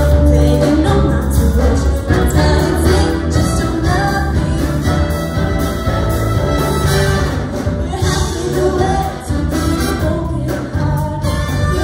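Live jazz big band playing a song with a woman singing lead and backing vocalists, over drums, bass, keys and a horn section.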